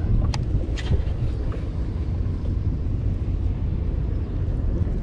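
Small boat under way: an outboard motor running, with wind buffeting the microphone as a steady low rumble.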